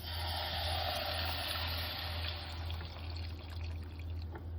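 Milk mixed with fresh cream being poured into a pan of hot butter-flour roux: a rushing, hissing pour that starts at once and dies away over about three seconds.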